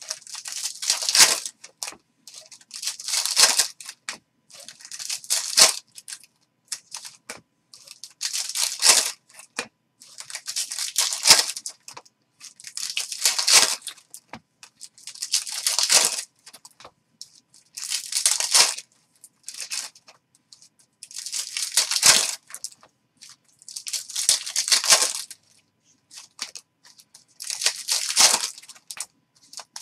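Foil Topps Chrome baseball card packs being torn open and crinkled, one after another, in short noisy bursts about every two seconds.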